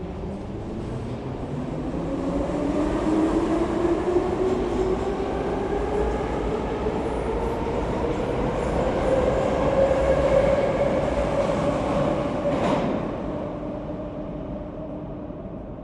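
A train moving through the station, its whine rising steadily in pitch as it gathers speed. It grows louder, then fades away, with a single sharp clack shortly before it dies down.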